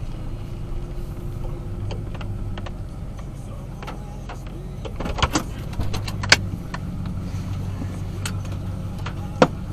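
A vehicle's engine running with a steady low hum, with scattered sharp clicks and knocks, the loudest about six seconds in and another just before the end.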